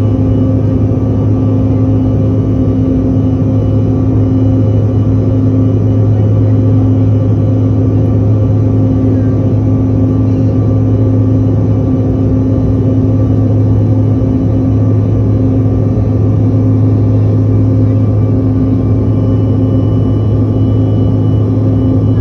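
Jet airliner cabin noise during the climb after takeoff: the engines and airflow make a loud, steady drone, with a strong low hum and a few steady tones over an even rush.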